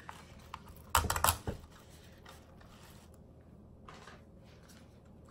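Artificial orchid stems and leaves being handled and pushed into an arrangement: a short burst of plastic clicking and rustling about a second in, then faint scattered ticks.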